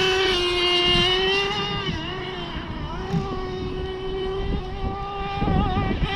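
Nitro engine of a Kyosho Inferno GT2 RC car running at high, nearly steady revs, a high-pitched buzz; it gets quieter in the middle and louder again near the end.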